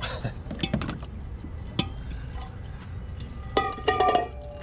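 A plastic water jug and its spigot being handled over a stainless-steel bowl: scattered clicks and knocks, then a brief metallic clinking and ringing near the end.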